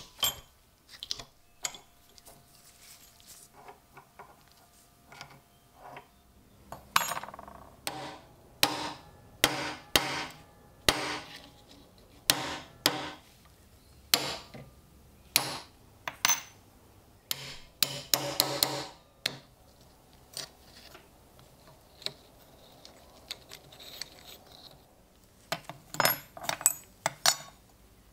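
Hammer tapping on metal in irregular strikes, mostly a second or so apart, with pauses in between and a short quick run of hits about two-thirds of the way through.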